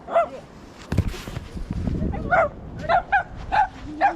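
A dog barking in about six short, irregular barks, with a thump about a second in.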